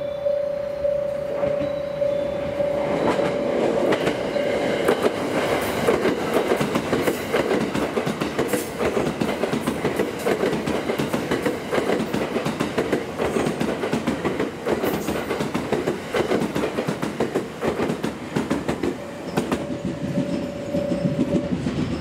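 A JR West 289-series limited express electric train, nine cars long, runs through the station past a level crossing. Its wheels clatter over the rail joints for about fifteen seconds. The crossing's warning bell rings in steady pulses, is drowned by the train, comes back as the last car clears, and cuts off shortly before the end.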